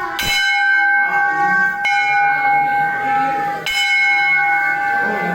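Temple bell struck three times, about every two seconds, each stroke ringing on into the next.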